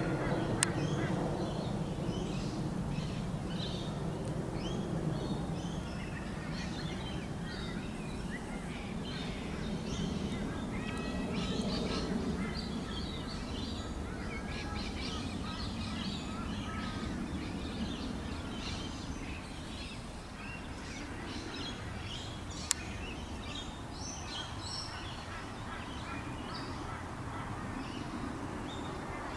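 Small birds chirping, many short high calls scattered throughout over a low steady background rumble. Two sharp clicks, one just after the start and one about three-quarters of the way through.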